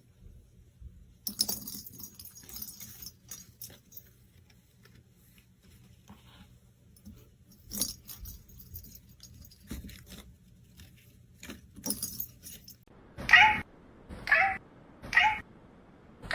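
A cat meows three times in quick succession near the end, each meow short and loud. Before that there are faint scattered clicks and brief bursts of light jingling.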